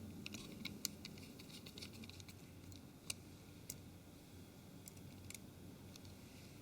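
Faint scattered clicks and ticks of a small screwdriver and plastic phone parts being handled during reassembly, a cluster in the first second then single clicks, over a low room hum.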